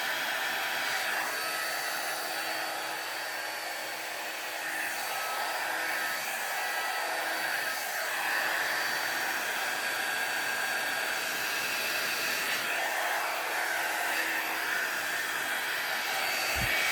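Hair dryer with a brush attachment running steadily on medium heat: a continuous rush of air with a faint steady whine, the hiss shifting slightly in tone as it is worked through the hair.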